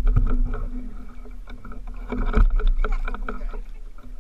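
Fishing reel being wound in on a jigging rod, a rapid run of irregular clicks over a steady whir, loudest about two seconds in.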